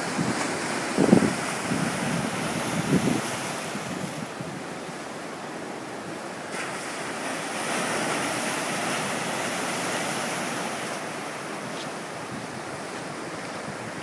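Ocean surf breaking and washing over a rocky lava-boulder shore, swelling louder for a few seconds midway. Wind buffets the microphone in short low bursts about a second in and again near three seconds.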